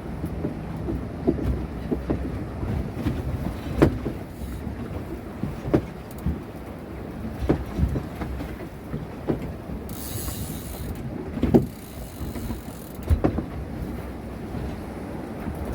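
Small fishing boat running under engine, a steady low hum, with irregular sharp knocks and thumps every second or two as the hull meets the waves.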